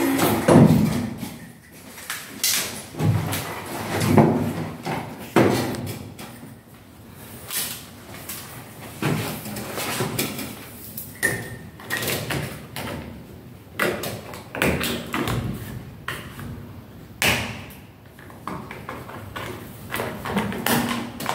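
Irregular clicks, knocks and scraping of a white plastic cover strip being pressed by hand into a recessed aluminium LED profile.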